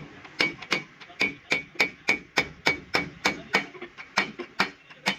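A hammer striking metal in a steady run of blows, about three a second, each with a short ring.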